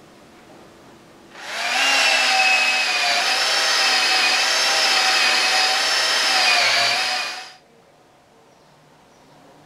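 Cordless drill spinning a small polishing mop against the aluminium rocker box cover of a Harley Sportster engine, polishing the casing. It is a steady high-pitched motor whine that starts about a second in, wavers slightly in pitch as the mop is pressed on, and stops after about six seconds.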